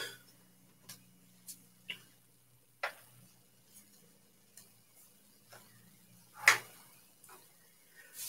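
Light, irregular clicks and taps of trading cards being handled and set down on a desk, about a dozen in all, with the sharpest one about six and a half seconds in. A faint steady hum runs underneath.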